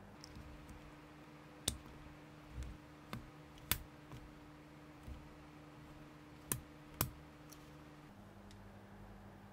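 Small plastic building-brick parts clicking as a top hat and hand accessories are pressed onto a crewmate minifigure: about five sharp clicks with a few softer knocks between, over a faint steady hum.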